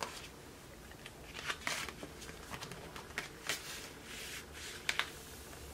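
Hands handling an open plastic CD jewel case and album packaging: a string of sharp plastic clicks and taps, with short rustles in between.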